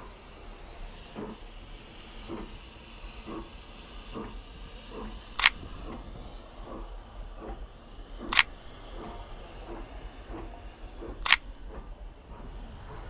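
Three sharp camera-shutter clicks, about three seconds apart, each as a new photo comes up. Behind them runs a steady hiss with soft knocks about once a second.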